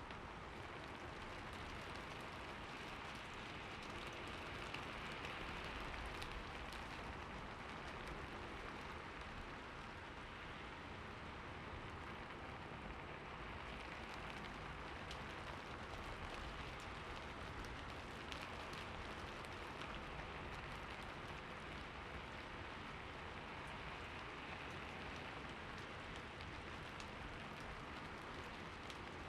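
Light rain falling steadily, an even patter of fine drops.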